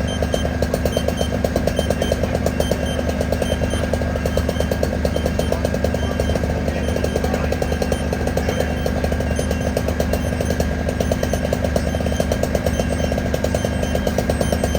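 Engine running at a steady speed, with a rapid, even pulse, a steady low hum and a steady high whine.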